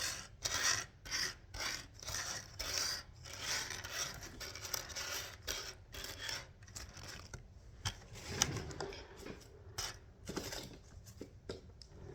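Acupressure rings being handled and sorted, making irregular rasping rubs and scrapes, about one or two a second.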